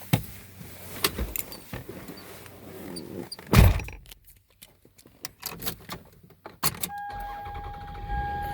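A few clicks and a heavy thump, then about seven seconds in the Toyota Sienna van's engine starts and keeps running with a steady high whine. The weak battery now starts the van because the alternator has recharged it.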